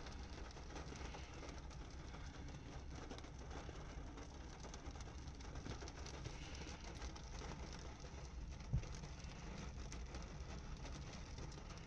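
Faint, steady low background rumble with light noise over it, and a single soft thump about nine seconds in.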